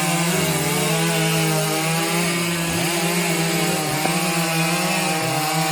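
Chainsaw running at high revs while cutting wood, its engine note wavering and dipping briefly under load about two and a half seconds in.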